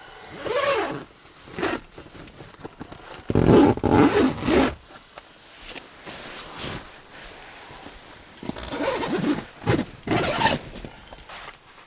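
Blankets, a puffy jacket and nylon rooftop-tent fabric rustling as a person moves about and gets up, with zipper pulls. The loudest burst comes about three to five seconds in.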